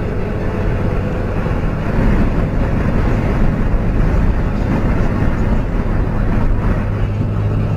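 Steady running noise of a moving road vehicle: a low engine hum under a dense rush of road and wind noise.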